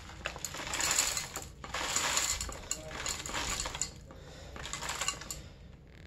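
Roudybush crumble bird food pellets poured from the bag into a clear plastic feeder cup, the small hard bits rattling and pattering against the plastic in a few bursts that thin out near the end.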